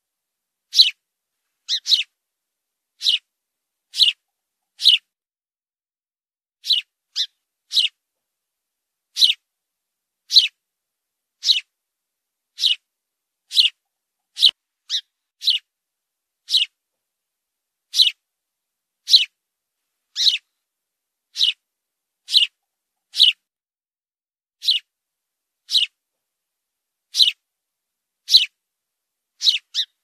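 A house sparrow chirping: short, sharp single chirps about once a second at an uneven pace, now and then two close together, with silence between them.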